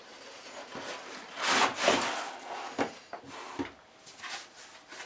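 Cardboard box being opened and its packaging handled: cardboard sliding and scraping against cardboard. The longest, loudest scrape comes about one and a half seconds in, followed by a few shorter rubs and taps.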